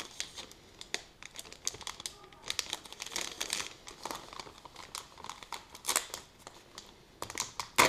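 Paper chocolate-bar wrapper being handled and torn open: irregular crinkling and crackling, with one sharper, louder crackle near the end.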